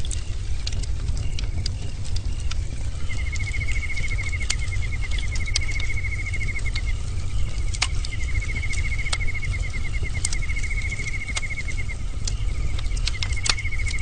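Bonfire burning with a steady low rumble and frequent sharp crackles and pops. About three seconds in, a high, rapid trill of even pulses comes in, sounding in three long bouts of about four seconds each.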